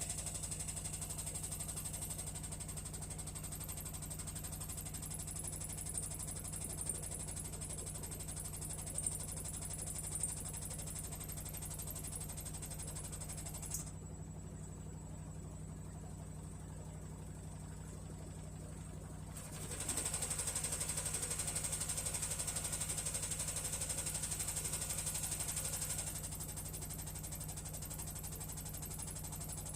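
Hisense HW-DG80C washing machine beginning its spin, the wash tub rattling and knocking against the outer tub over a steady motor hum, with a few sharper knocks in the first half. It is the initial defect that kept the spin from running properly. The sound drops back about halfway through, then comes back louder for several seconds.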